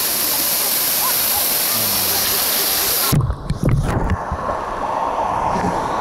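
Erawan waterfall's second-tier cascade rushing steadily. About three seconds in, the sound turns suddenly muffled, with low sloshing thumps for about a second, as water washes over the microphone at the surface. The rush then carries on dulled.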